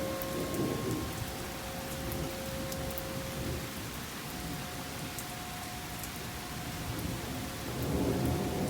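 Thunderstorm: rain falling steadily and thunder rumbling, swelling near the start and again near the end. Under it the tornado warning siren holds a steady tone that steps to a higher pitch about halfway through.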